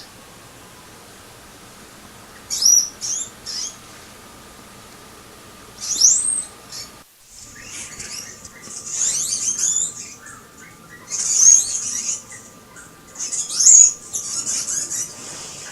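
Two small caged pets making high-pitched chirping squeaks in short bursts. The chirps get busier and more continuous after the first few seconds. The owner says these noises come after a sand bath, when the pair chase each other around the cage.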